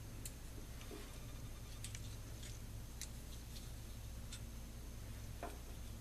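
Faint, irregular small clicks and ticks of wires and a soldering iron being worked against the solder lugs of a small toggle switch, over a steady low electrical hum.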